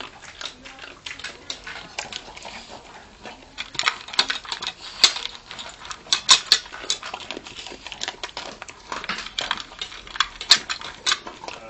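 Small dog eating from a stainless steel bowl: quick, irregular crunching and clinks of teeth and food against the metal, loudest in clusters around the middle and near the end.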